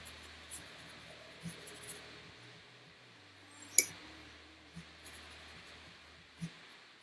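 Quiet sounds of acrylic painting: a paintbrush working on watercolor paper, with a few soft taps and one sharp click about halfway through.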